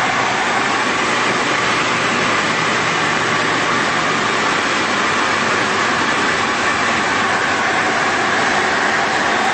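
Steady cockpit noise of a Tecnam P2002 Sierra light aircraft in flight: its Rotax 912 flat-four engine and propeller running at a constant setting under a heavy rush of wind, heard from inside the cabin.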